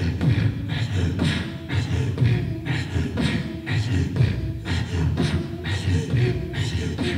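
Inuit throat singing and throat boxing performed together into microphones: beatboxed vocal percussion keeps a steady beat of two to three strokes a second, under low, pulsing throat-sung tones.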